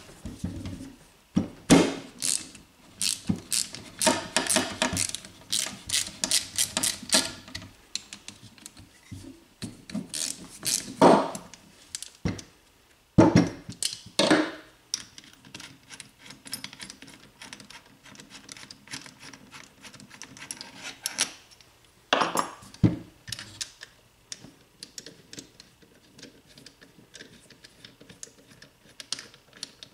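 Hand socket ratchet clicking in quick runs as the two through-bolts holding a starter motor together are backed out, with a few sharp knocks in between.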